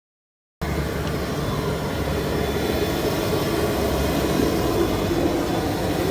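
Steady rumble of a vehicle in motion, cutting in abruptly after a brief silence.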